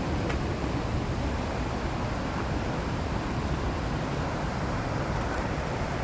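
Waterfall rushing in a steady, unbroken roar, with a faint steady high whine above it.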